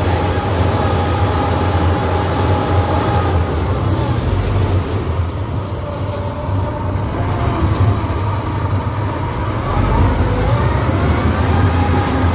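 An engine running steadily close by, a deep hum that eases off slightly around the middle and picks up again.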